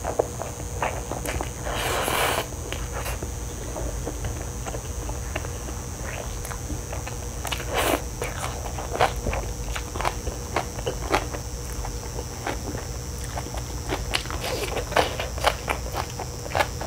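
Close-miked eating sounds: chapaguri noodles and spring onion kimchi slurped in with chopsticks, with wet chewing and many small mouth clicks. A longer slurp comes about two seconds in and another near eight seconds.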